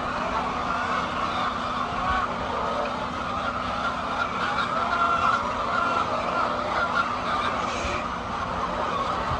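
A large flock of hens clucking and calling together, a dense steady chatter of many birds, over a faint steady low hum.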